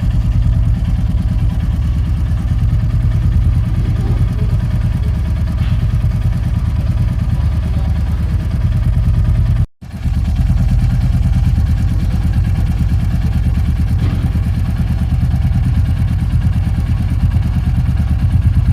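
Royal Enfield 350 single-cylinder engine idling steadily, its exhaust giving an even low thump, cut by one brief abrupt gap about halfway through.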